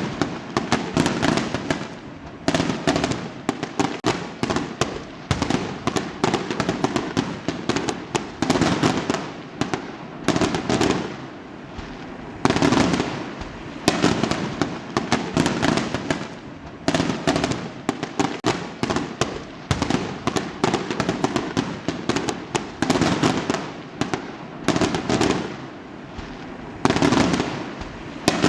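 Fireworks going off in rapid succession: loud bursts every second or two, each followed by a dense crackle of small reports.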